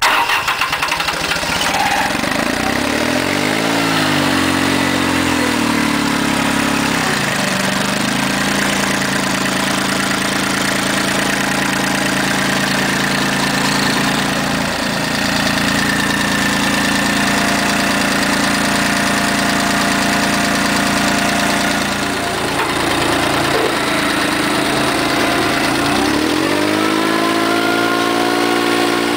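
Mitsubishi D1550FD compact tractor's diesel engine starting at once, revved up and back down a few seconds in, then idling steadily. Near the end it is revved up again and held at a higher speed.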